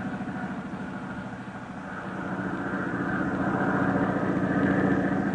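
A motorcycle engine running steadily, getting louder in the second half.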